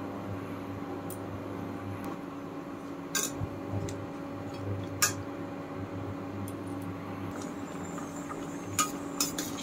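A metal slotted spoon clinks against a stainless steel kadai a few times while stirring jackfruit pieces in water, with several clinks close together near the end. A steady low hum runs underneath.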